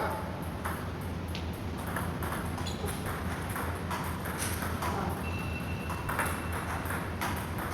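Table tennis ball clicking off paddles and the table in a rally, a series of sharp knocks about every half second to second, over steady hall hum; a brief thin squeak, as from a shoe on the floor, a little after the middle.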